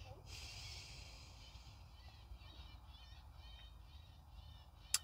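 Faint birds chirping outside, over a low steady rumble, with a single click near the end.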